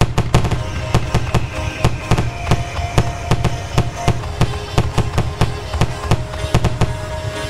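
A dense barrage of fireworks going off in rapid succession, many bangs and crackles a second, with the show's music playing under them. The barrage starts suddenly at full loudness.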